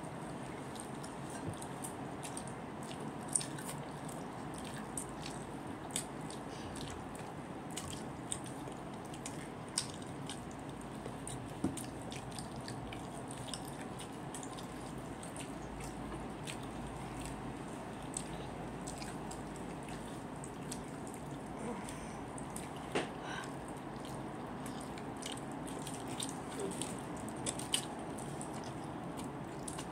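Wet mouth sounds of someone eating with their fingers: scattered lip smacks and sticky clicks every second or two, with soft chewing, over a steady background hum.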